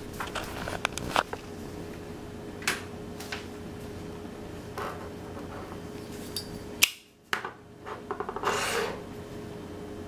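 Open, lit Zippo lighters being handled: scattered sharp metallic clicks and clinks, with a quick run of small ticks and rattles near the end. A faint steady hum runs underneath.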